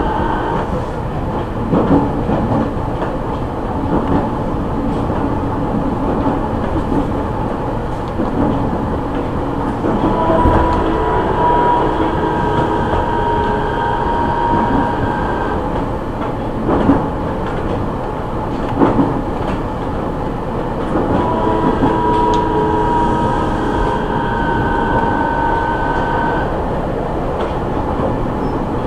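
On-board running noise of a JR East E501-series electric train at steady speed, heard from the end of a motor car. There is continuous wheel-and-rail rumble with occasional rail-joint knocks. A steady whine from the original Siemens GTO VVVF inverter and traction motors comes in for several seconds twice, about a third and two-thirds of the way through.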